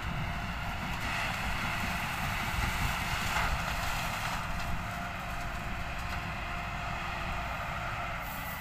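Steady drone of a Thai Rung Ruang (TRM) sugarcane harvester's diesel engine working in the cane, heard at a distance with the tractor beside it, mixed with wind buffeting the microphone.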